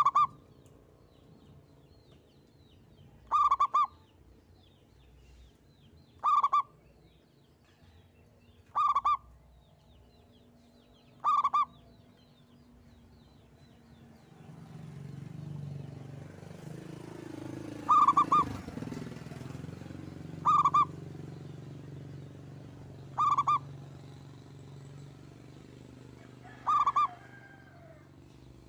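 Zebra dove (perkutut) cooing: a short call repeated nine times, mostly every two to three seconds, with a longer pause midway. A low rumble of background noise rises in the middle and fades out.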